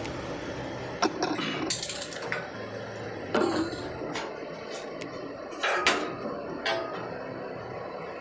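About five separate clanks and knocks, spread over several seconds, of metal paint cans being handled and set down, over a steady low hum.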